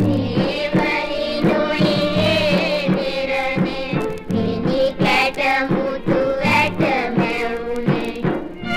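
Background music: a song with a sung melody held over a regular drum beat.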